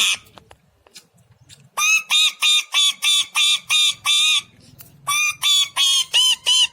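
Indian ringneck parakeet giving harsh repeated squawks, about three a second: a run of about nine calls, a short pause, then a second run of about six.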